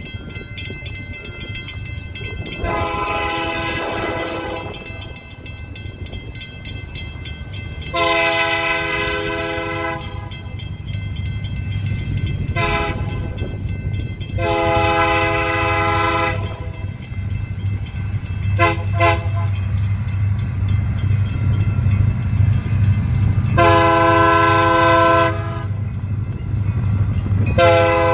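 Union Pacific SD70M diesel locomotive blowing its multi-chime air horn as it approaches: long, long, short, long, the standard grade-crossing signal, then more long blasts. The low rumble of its diesel engine and the train grows steadily louder as it closes in.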